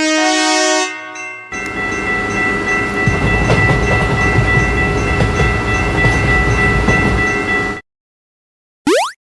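A train horn held as one steady chord over the low rumble of a train for about six seconds, cutting off suddenly. Before it, a short brass music phrase ends, and near the end a quick rising swoosh.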